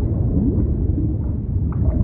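Steady low rumble of the sea, a continuous wash of waves with most of its weight in the bass and little hiss on top.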